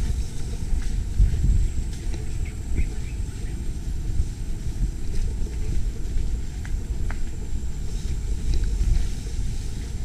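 Mountain bike rolling over a rough dirt trail: a continuous low rumble of tyres and frame with wind buffeting the microphone, and a few light clicks and rattles.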